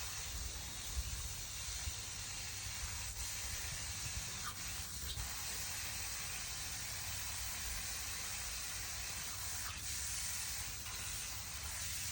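Water running and spraying with a steady hiss.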